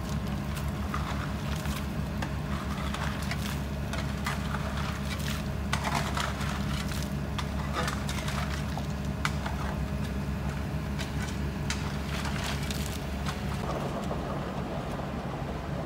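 Excavator's diesel engine running steadily, with scattered sharp clinks and scrapes of metal and stone that die away near the end.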